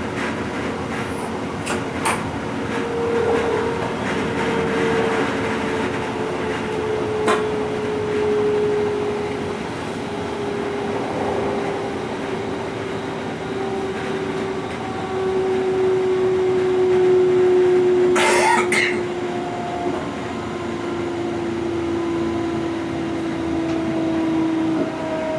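Inside the cab of a DB class 425 electric multiple unit on the move: rail rumble under a steady electric traction whine whose pitch falls slowly, a sign that the train is slowing. There are a few sharp clicks in the first seconds and a brief loud hiss about three quarters of the way through.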